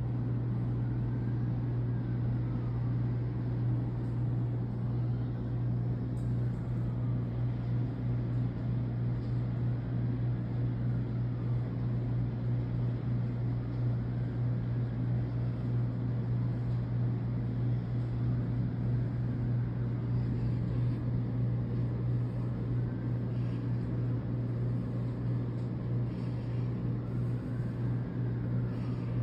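A steady low hum over an even rushing background. Faintly above it, a distant siren slowly wails up and down every few seconds.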